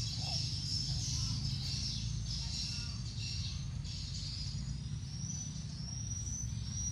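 Rural pond-side ambience: patchy high-pitched chirping over a steady low rumble, with a thin, steady high trill coming in about five seconds in.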